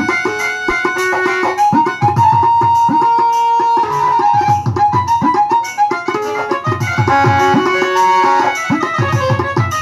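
Instrumental bhawaiya folk music from an electronic keyboard through a loudspeaker: a held, sustained melody over a steady beat of drum strokes that each drop in pitch.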